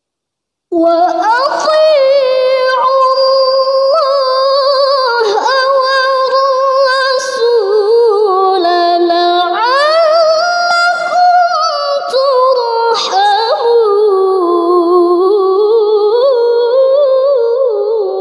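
Female voice reciting the Quran in melodic tilawah style, with long drawn-out held notes and wavering ornaments. It begins sharply about a second in.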